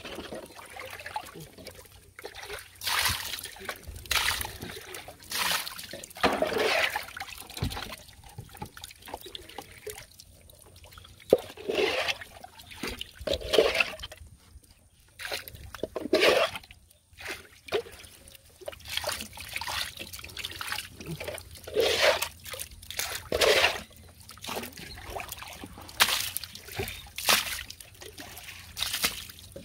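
Water splashing and trickling in short irregular pours, one every second or two.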